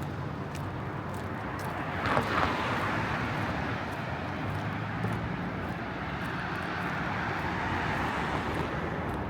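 Steady outdoor city rumble of engines and traffic, with a brief louder whoosh about two seconds in.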